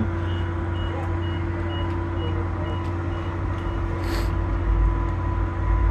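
A UTA FrontRunner commuter train stands at the platform with a steady low engine hum. For the first three and a half seconds a series of short high beeps sounds, about two or three a second, and a brief hiss of air comes about four seconds in.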